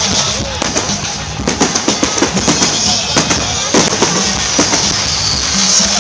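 Fireworks going off in quick succession, a dense run of bangs and crackles, with music playing underneath.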